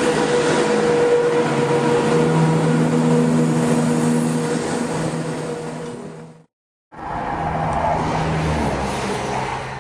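OO gauge model Class 170 Turbostar train running along the track, a steady mechanical hum with several held tones. The sound cuts out for about half a second roughly two-thirds of the way through, then picks up again as the train runs on.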